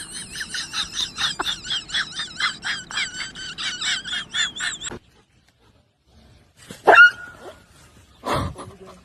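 Rapid, high-pitched chirping animal calls, about five a second, that cut off suddenly about five seconds in; two short, separate calls follow near the end.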